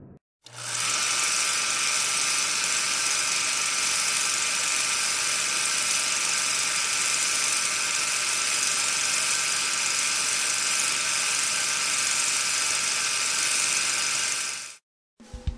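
Mist cannon on a HOWO Sinotruk dust suppression truck running: its large fan blowing water fog with a steady, even hiss over a low steady hum. It cuts in abruptly just after the start and cuts off abruptly shortly before the end.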